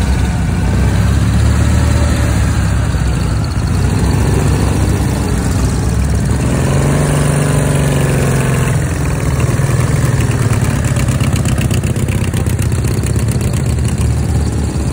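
A convoy of WWII German sidecar motorcycles with flat-twin engines runs at low speed. One rides close past about seven or eight seconds in, and its engine note rises and then falls.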